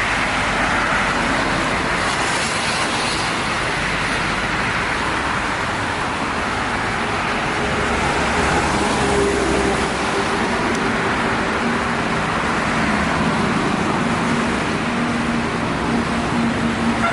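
Steady road traffic noise of vehicles passing at speed, with a faint engine hum from passing heavy vehicles through the middle and latter part; no horn melody stands out.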